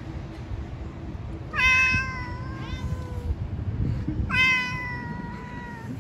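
A cat meowing twice, two long drawn-out meows about three seconds apart, each sliding slowly down in pitch.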